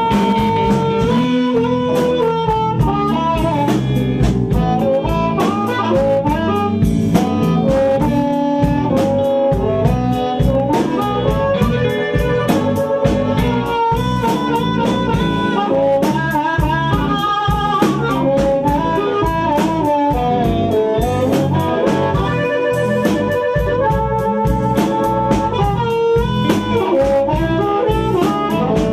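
Amplified blues harmonica solo, played cupped against a microphone: held notes that bend and waver, over a live band with drum kit and electric guitar.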